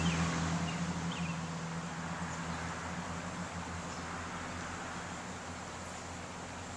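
Outdoor background: a steady low hum that fades away over the first two seconds, under an even hiss, with a few faint short high chirps about a second in.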